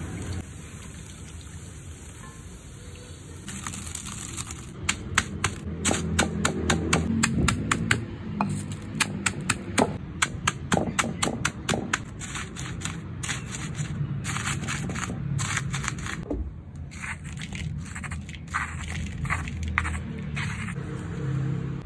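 Fried kerupuk crackers being crushed in a stone mortar with a stone pestle: a long run of sharp, dry cracks and crunches, fastest in the middle and thinning toward the end. It follows a few seconds of hot oil sizzling at the start.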